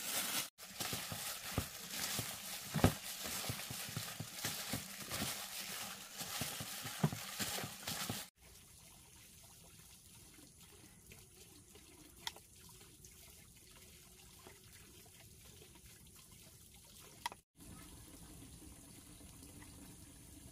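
Water splashing and trickling, with frequent knocks and clatter. About eight seconds in it stops abruptly, leaving a faint hiss with a couple of sharp clicks.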